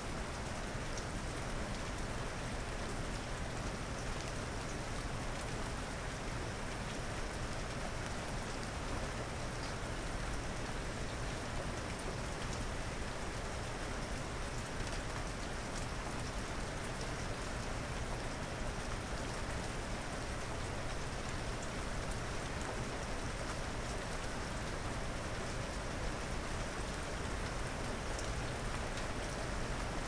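Steady rain falling, an even hiss of many drops.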